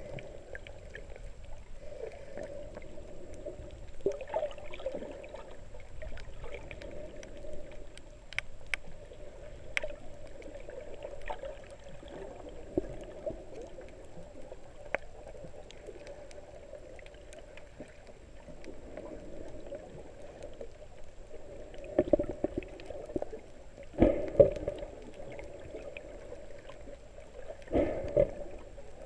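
Muffled underwater water noise as a camera moves through the sea, with water gurgling and scattered sharp clicks. There are a few louder rushing surges, twice close together in the last third and once more near the end.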